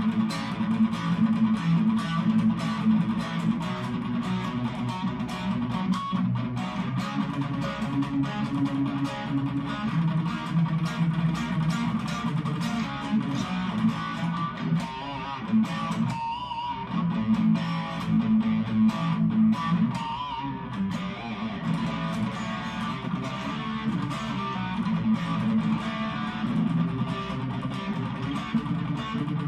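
Harley Benton Modern Strat SSH electric guitar played with distortion through its bridge humbucker: a continuous passage of picked notes and chords.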